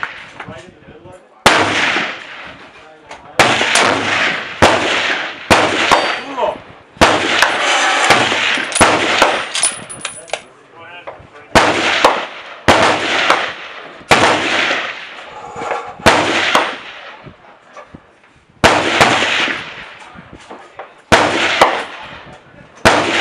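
Gunshots in quick irregular succession, more than a dozen, usually a second or two apart and sometimes closer. Each is a sharp crack with a long echoing tail. The shots come too fast for one bolt-action rifle, so several guns are firing.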